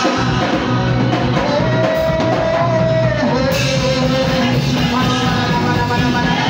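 Live worship music: a man singing into a microphone over instrumental backing, holding one long note in the middle.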